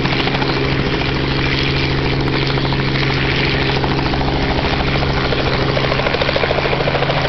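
Light two-bladed helicopter hovering low: a steady engine drone with the fast chop of the rotor blades, the blade beat a little stronger near the end.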